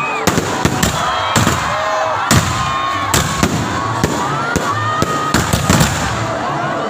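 Fireworks going off, a dozen or so sharp bangs in quick, irregular succession, over the steady noise of a crowd.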